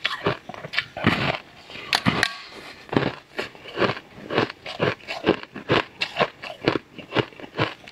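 Close-miked crunching as a slab of hard, brittle purple crystal sugar candy is bitten and chewed. It gives a rapid, irregular series of sharp cracks and crackles.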